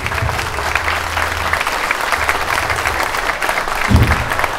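Audience applauding, many hands clapping steadily, with a single low thump about four seconds in.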